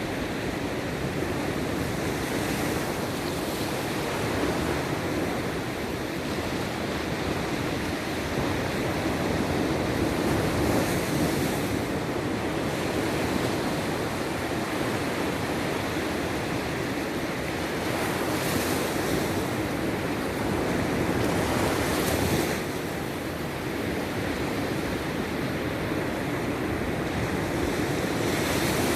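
Sea surf washing steadily on the shore, with waves breaking louder every several seconds; the strongest come about ten and twenty-two seconds in.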